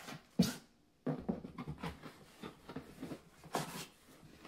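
Hands rummaging in a cardboard box: cardboard flaps and dividers rubbing and knocking in a string of short, irregular rustles and bumps, the sharpest about half a second in.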